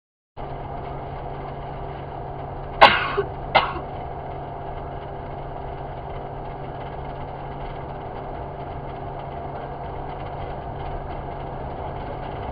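Steady road and engine noise inside a car cabin at motorway speed, cutting in suddenly about half a second in. About three seconds in, two short loud coughs a little under a second apart.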